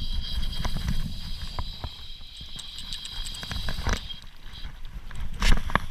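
Fly reel clicking and rod-handling knocks while a hooked salmon is played, over a low rumble of wind on the microphone. A louder knock comes near the end.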